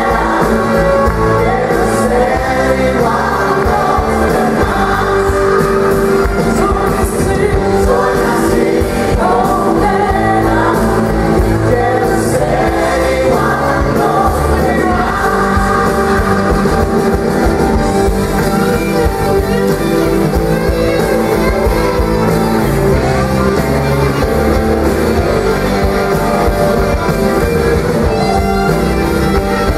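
Live pop-rock band playing loudly, with a woman singing lead and a gospel choir behind her, over keyboard and electric bass guitar.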